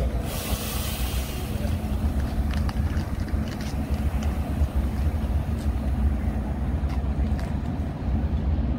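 Steady low rumble of a stopped Metra commuter train's diesel locomotive running at idle, with a burst of hiss near the start and a few light knocks.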